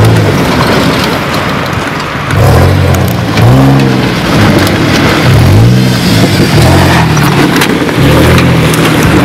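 Ford F-150 pickup's engine revving hard, its pitch rising and falling several times as the truck spins its tyres through loose dirt. The revs drop away briefly about a second in and hold steadier near the end.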